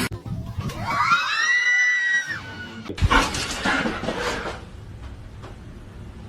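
A cat's long drawn-out yowl, rising in pitch and then held for over a second, followed by a shorter, rougher bout of cries.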